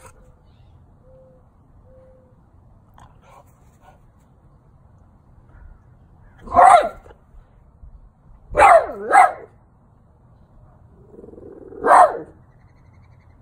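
French bulldog barking in short, single barks: one about halfway through, a quick pair about two seconds later, and one more near the end, with quiet pauses between.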